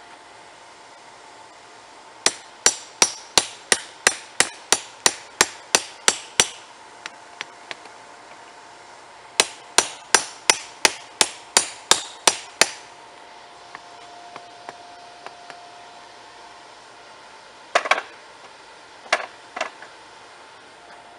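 Hammer blows on a hot railroad spike laid on a chain-wrapped section of rail used as an anvil: sharp metal-on-metal strikes at about three a second, in two runs of roughly a dozen blows with a pause between. A few separate clanks follow near the end.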